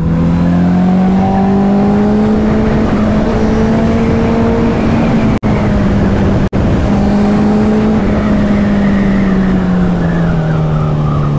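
Honda CBR650F's inline-four engine running steadily at cruising revs while riding, its pitch rising slightly at first and easing down near the end, over a rush of wind and road noise. The sound cuts out twice for an instant about halfway through.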